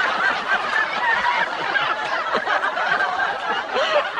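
Several people laughing and snickering at once, in a continuous overlapping stretch of chuckles.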